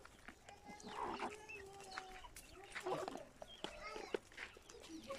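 Chickens clucking, many short calls overlapping.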